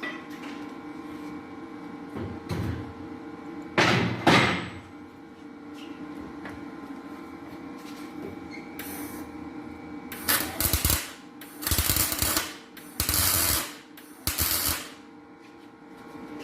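Hammer knocks on a cast cylinder head, two close together about four seconds in, then four short crackling bursts of welding from about ten seconds on. This is valve seat inserts being removed by welding a bead inside each seat and knocking it out.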